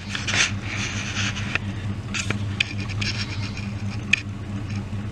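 Irregular crunching footsteps and scuffs on a dirt yard over a steady low motor hum.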